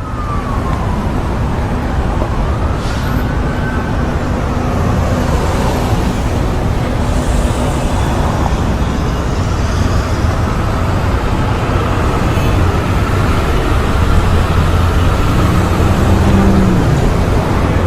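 Steady city traffic rumble, with a siren wailing slowly up and down in the distance. A brief lower pitched sound, such as an engine or horn, comes in near the end.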